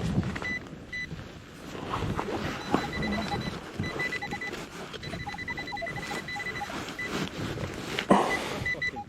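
Metal detector electronics beeping: a repeated high steady beep runs through most of it, while short lower tones change pitch as targets are swept, with a few knocks and rustles of handling or digging.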